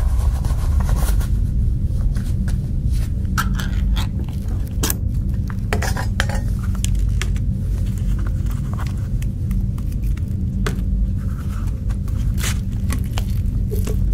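Canned dog food being scraped out with clinks and scrapes and dropped onto a paper plate, over a loud steady low hum.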